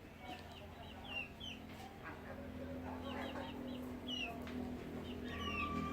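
Chickens calling, with many short, high, downward-sliding peeps repeated in quick groups. A low steady hum underneath grows louder near the end.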